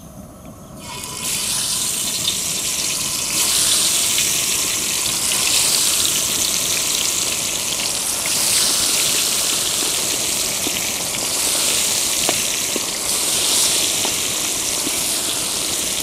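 Marinated chicken pieces deep-frying in hot coconut oil in a large uruli, the oil sizzling loudly from about a second in, swelling and easing a few times, with occasional small pops.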